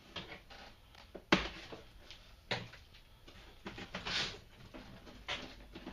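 Handling noises from the boxed RC truck and its cardboard packaging. A sharp knock comes about a second in, a second knock follows a little later, and scattered clicks and a brief rustle fill the rest.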